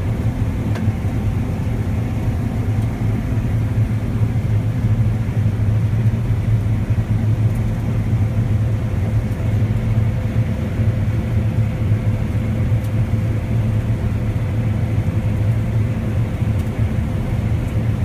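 John Deere S670 combine running steadily under load while cutting wheat, heard from inside the cab: a constant low rumble with a faint steady hum above it.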